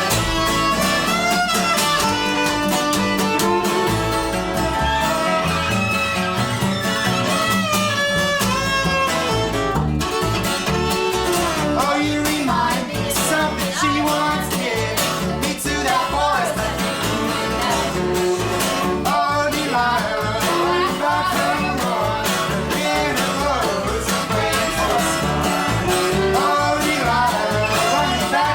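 Live band playing an instrumental passage: bowed viola carrying the melody over guitar and upright bass.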